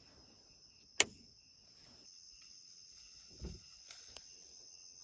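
A steady chirring chorus of night insects, typical of crickets. About a second in there is a sharp click, the loudest moment, and a softer low thump follows at about three and a half seconds.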